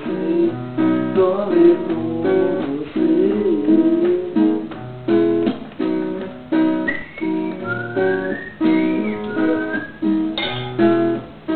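Acoustic guitar strummed in a steady rhythm of chords, with a high gliding melody line joining from about seven seconds in.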